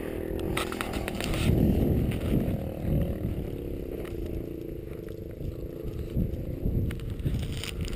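A small engine running steadily at an even pitch, under low, irregular rumbling gusts of wind on the microphone and a few sharp knocks.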